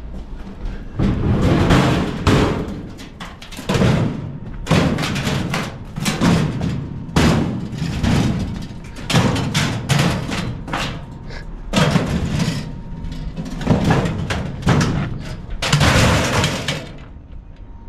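Steel file cabinets and lockers being pushed off a truck and crashing down onto a scrap pile: a dozen or so heavy metal clangs and clatters, about one a second, each with a short ringing tail.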